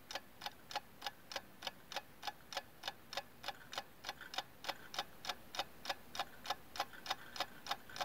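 Steady clock-like ticking, about four even ticks a second.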